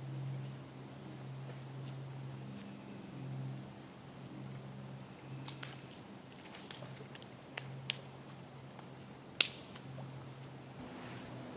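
Woodland insects (crickets or katydids) calling in a steady, rapid, high-pitched pulsing chorus over a low steady hum, broken by a few sharp clicks, the loudest about two seconds before the end.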